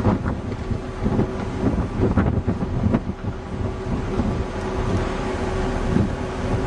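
Wind buffeting the microphone on a ship's open deck, in uneven gusts that settle into a steadier rush after about four seconds, with a steady low hum underneath.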